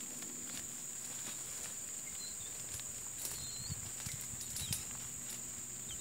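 Outdoor ambience of insects chirring steadily at a high pitch, with a few faint short chirps and scattered clicks and soft rustling thumps.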